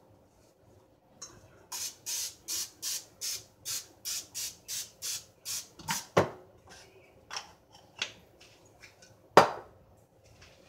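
Aerosol cooking-spray can hissing in a quick run of about a dozen short squirts, roughly three a second, as a baking dish is greased. Then a few sharp knocks follow, the loudest near the end.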